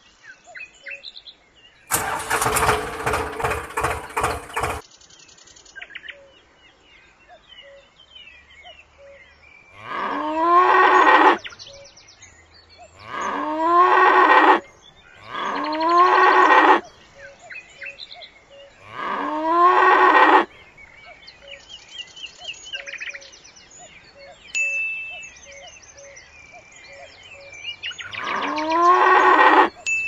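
A cow mooing five times, each a rising call about a second and a half long, over small bird chirps. About two seconds in, a loud, rough noise lasts nearly three seconds.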